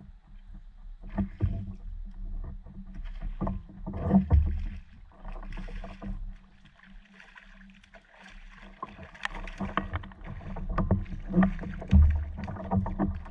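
Irregular knocks and thumps on a fishing paddleboard's deck, with water splashing, as a hooked redfish is fought to the board. The heaviest thumps come about four seconds in and near the end.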